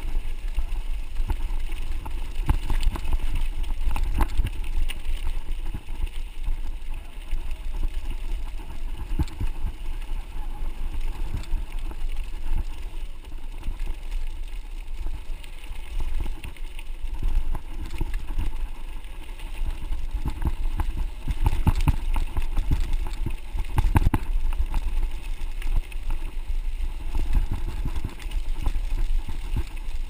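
Mountain bike riding along a dirt road, heard through a handlebar-mounted camera: a steady low rumble from the tyres and frame on the rough surface, with frequent knocks and rattles as the bike jolts over bumps.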